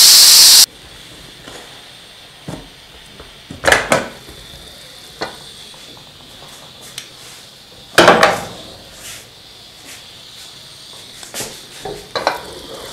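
Aluminium pressure cooker venting steam with a loud hiss as its weight valve is lifted, cutting off suddenly after about half a second. Then two loud knocks from the pot, about 4 and 8 seconds in, and light clatter of a wooden spoon stirring in the pot near the end.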